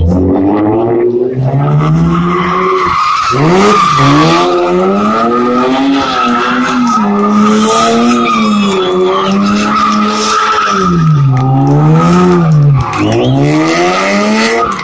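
BMW E36 3 Series saloon drifting: its engine held at high revs, the pitch rising and falling with the throttle and dipping sharply twice, over a steady, continuous tyre squeal from the sliding rear tyres.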